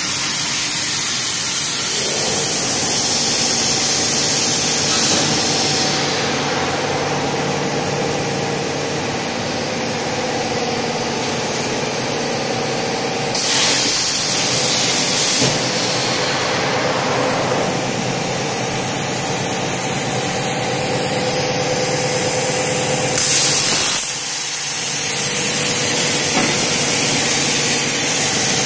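CNC plasma cutter's arc hissing steadily as it cuts metal plate, with a steady hum under it. The hiss turns louder and sharper twice for a moment, once for about two seconds near the middle and once briefly near the end.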